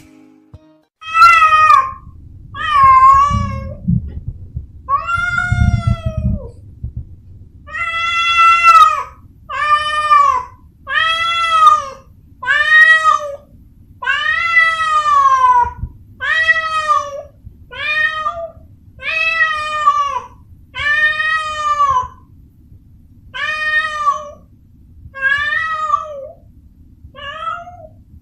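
Calico cat meowing over and over, about fifteen meows one every second or two, each one rising and then falling in pitch.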